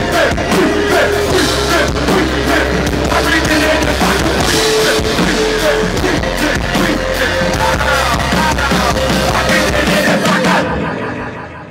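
Live band playing loudly: drum kit, instruments and a singer on a microphone. Near the end the song stops and the sound dies away.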